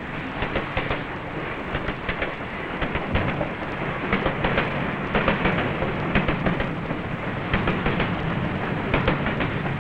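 Train passing close by: a steady rumble with irregular clattering and knocking from the wheels on the rails.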